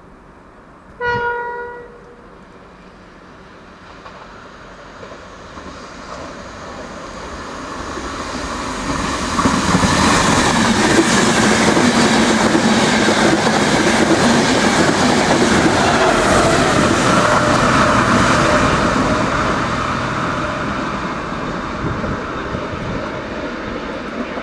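A short, single horn blast about a second in, then an Irish Rail Enterprise passenger train with a 201 Class diesel-electric locomotive approaching and passing at speed. Its wheel-and-rail noise and running builds up, stays loud for about nine seconds as the carriages go by, and slowly fades.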